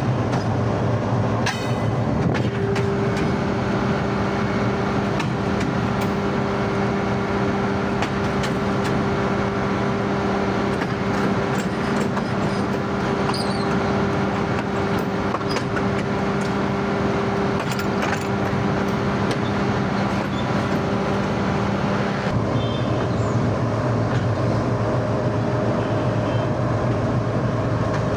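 GEU-20 (GE U20C) diesel-electric locomotive's engine running steadily as the locomotive rolls along the yard track. The engine note shifts about 22 seconds in.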